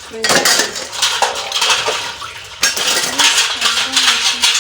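Plates and metal cutlery clattering and clinking together as dishes are handled and washed at a sink, over a steady hiss of running water.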